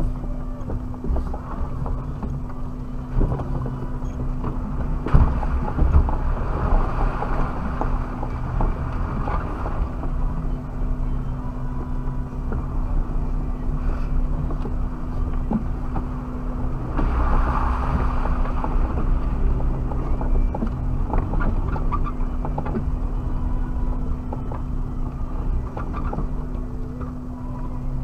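Suzuki Jimny driving over rough off-road ground, with a steady low rumble and a constant hum, swelling louder twice.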